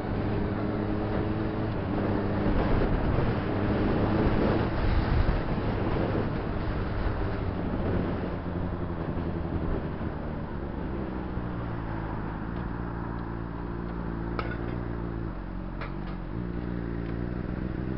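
Honda CBR600RR's inline-four engine running as the motorcycle rides, with rushing wind noise heaviest a few seconds in. It then settles to a steadier, lower engine note at low speed, with two brief clicks near the end.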